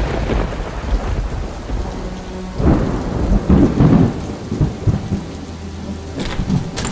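Thunderstorm: steady heavy rain with rumbling thunder, the rumble swelling louder about three seconds in.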